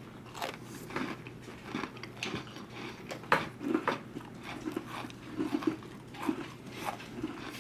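Someone biting and chewing an Oreo cookie close to the microphone: irregular crunches and mouth sounds.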